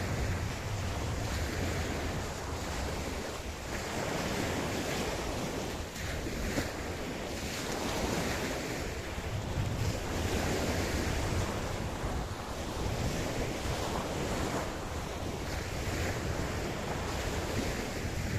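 Ocean surf: waves breaking and washing up on a beach, swelling and ebbing every few seconds, with a low rumble that may be wind buffeting the microphone.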